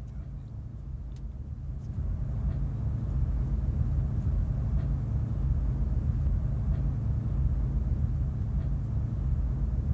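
Steady low rumble that grows louder about two seconds in.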